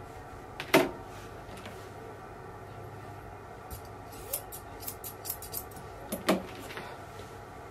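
Curved grooming shears snipping a toy poodle's coat under the chin and around the face: a handful of sharp metallic snips, a loud one about a second in, a quick run of lighter snips in the middle, and another loud one near the end.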